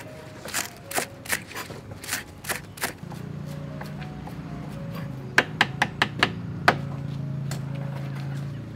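Kitchen knife chopping green onions on a wooden chopping board: sharp knocks two or three a second, then a quicker run of chops about halfway through.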